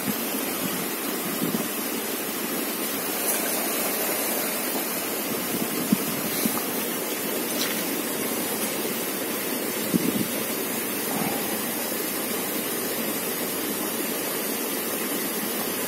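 Steady rushing background noise with a few faint clicks, about six and ten seconds in.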